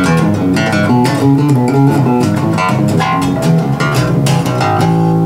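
Elegee Alab Series five-string jazz bass played fingerstyle through a small practice amp: a quick run of plucked notes, settling into a longer held note near the end.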